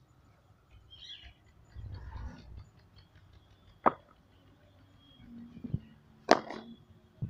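Two sharp wooden cracks of a cricket bat striking, about two and a half seconds apart, during batting practice on a concrete net pitch.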